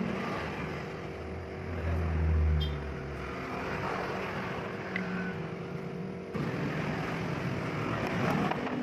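Low engine-like rumble swelling and fading about two seconds in, over a steady background hum.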